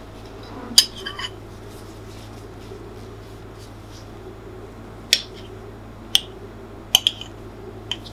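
A metal fork clinking sharply against a ceramic plate while it cuts through a slice of sponge cake: a few clinks about a second in, then four more in the last three seconds, over a faint steady hum.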